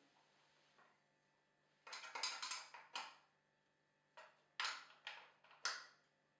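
Faint, short metallic clicks and taps of a tool on the oak stool's nuts as they are tightened: a quick run of clicks about two seconds in, then a few single ones near the end.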